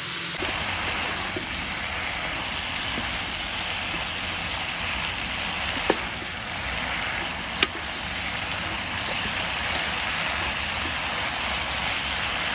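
Pork belly, green onion and bean sprouts sizzling steadily in a hot pan as they are stir-fried, with a couple of sharp clicks of the metal stirring utensil against the pan about halfway through.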